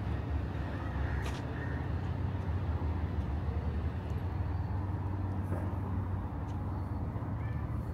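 Steady low engine rumble from motor vehicles, even and unbroken, with a couple of faint ticks.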